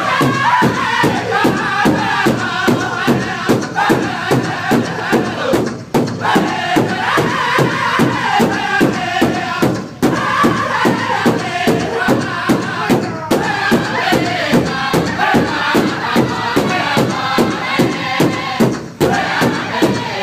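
Powwow drum group: several men striking one large shared drum in a steady, even beat, about two to three strikes a second, while singing together in high voices. The beat dips briefly a few times.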